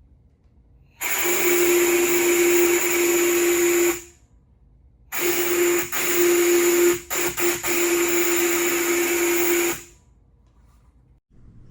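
3D-printed six-chime Santa Fe steam whistle blown with air, sounding in two blasts: one of about three seconds, then one of about four and a half seconds that stutters a few times in the middle. A single low tone stands out over loud air hiss, which the maker puts down to the whistle not getting enough airflow.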